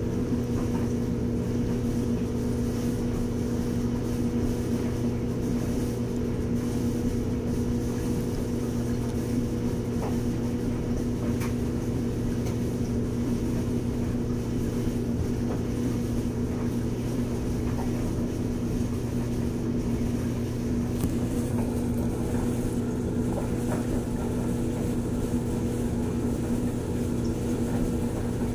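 A steady machine hum, even in pitch and loudness throughout.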